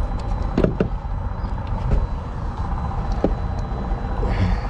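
Steady low rumble of idling engines, with a few sharp metallic clicks and knocks as jump-pack clamps are handled and fixed to truck battery terminals.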